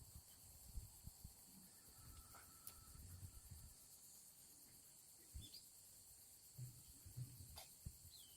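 Faint, steady high-pitched chirring of crickets, with a few soft low thumps now and then.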